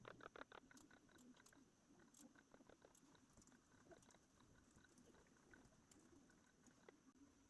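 Near silence with faint, quick, irregular clicks, densest in the first second and sparser after.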